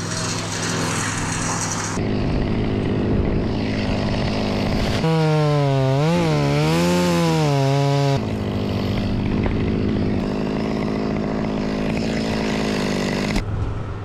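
Chainsaw cutting through a eucalyptus stem: the engine revs up and runs at full throttle under load. Its pitch dips and recovers as the chain bites, strongest about halfway through, then the saw eases off near the end.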